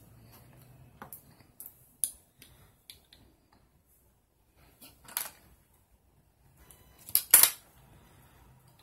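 Small metallic clicks and clinks as the metal frame of Oakley X Metal sunglasses is handled and knocked against a small steel riveting post. A scatter of light taps comes first, then a louder clink about five seconds in, and the loudest pair of clinks about seven seconds in.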